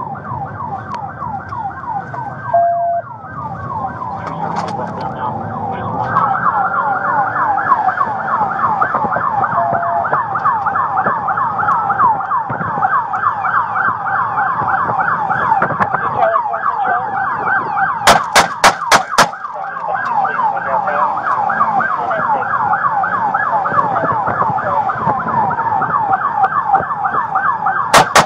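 Police car siren yelping in fast, rapid sweeps, with a slower wail sweeping over it in the first few seconds. About eighteen seconds in, and again at the very end, come five sharp bangs in quick succession, louder than the siren.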